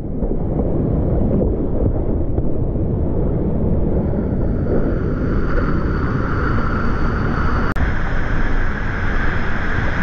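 Rushing whitewater: a loud, steady rumble of water noise, heaviest in the low end, with a brief click about three-quarters of the way through.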